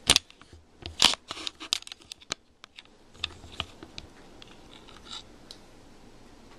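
A knife cutting open a cardboard box, with the box being handled: two loud sharp clicks near the start and about a second in, then scattered smaller clicks and scrapes that thin out in the second half.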